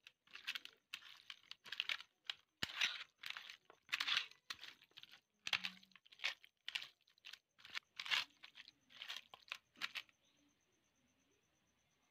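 A hand mixing raw chicken pieces with spice powders and ginger-garlic paste in a steel bowl, a quick run of squishing strokes about two a second that stops about ten seconds in.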